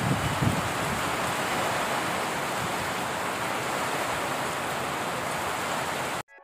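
Steady hiss of heavy rain falling, with wind buffeting the microphone for the first half second; the rain sound cuts off abruptly near the end.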